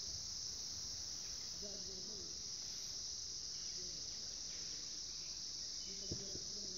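Steady, high-pitched insect chorus droning without a break, with faint voices in the distance.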